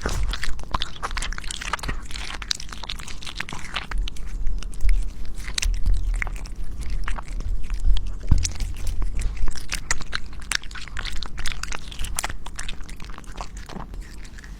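Cat chewing and biting raw food close to the microphone: a quick, irregular run of wet clicks and bites that thins out near the end.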